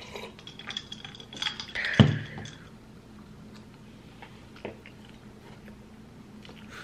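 Sips from a drinking glass, then the glass set down with one sharp knock about two seconds in; after that a few faint clicks of a fork on a plate while eating.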